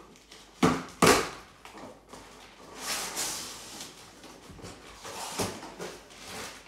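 Cardboard parcel being opened by hand: two sharp knocks about a second in, then a longer rasp as the packing tape is cut and the cardboard flaps are worked open, with smaller rustles and a tap near the end.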